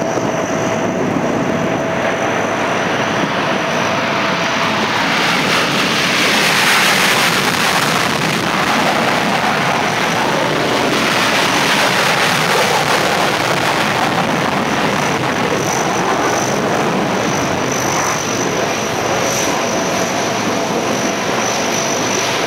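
Loud jet noise of F/A-18 Hornets taking off, swelling to its loudest about six to eight seconds in as a jet climbs out past, then holding at a high steady level. A faint steady high whine sits underneath near the start and the end.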